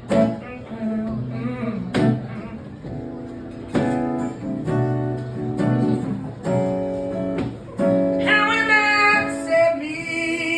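Acoustic guitar strummed in a live song, with strong strokes on an even beat. A wavering melodic line comes in near the end.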